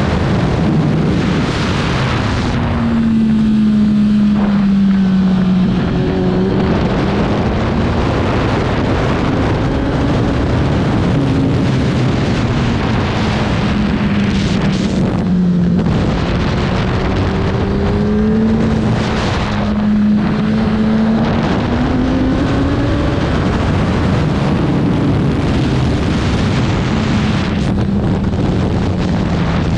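Racing motorcycle engine at speed, its pitch climbing and dropping over and over with throttle and gear changes, with wind rushing over the microphone.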